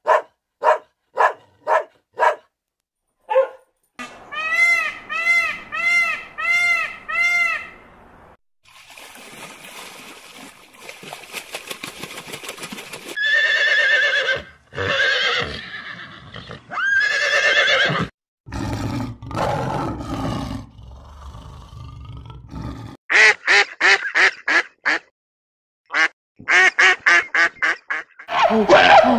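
A string of different animal calls. A dog barks several times in quick succession at the start, then comes a run of about six evenly spaced arching calls, and horse whinnies in the middle. Near the end, terns give rapid chattering calls.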